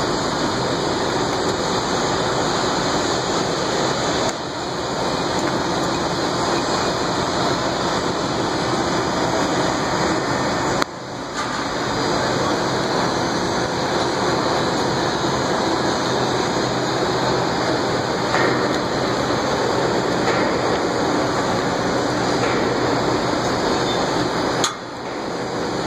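Steady, loud construction-site noise with a few faint metallic clinks, dipping briefly three times.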